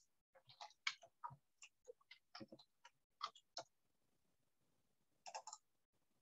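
Faint computer keyboard keystrokes: a run of irregular taps for about three seconds, typing an email address into a login field, then a short cluster of clicks about five seconds in.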